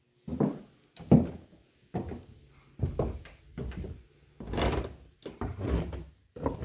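Footsteps climbing a wooden staircase, a heavy step about every half second to second, the boards knocking underfoot; the steps in the second half are louder and longer.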